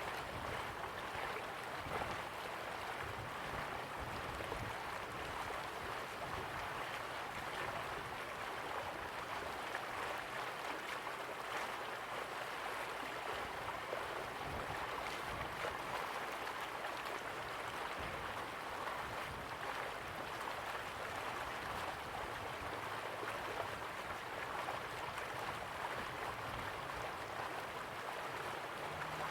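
River water flowing steadily, an even rush with no let-up.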